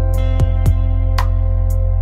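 Instrumental background music: held chords over a steady beat, with short strikes about every half second.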